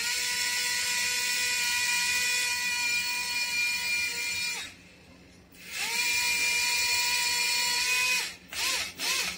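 Tiny toy drone's propeller motors whining at a steady high pitch for about four and a half seconds, cutting out, then spinning up again for about two and a half seconds, with two short blips near the end. One of its four propellers isn't working, which the owner puts down to a problem with its motor.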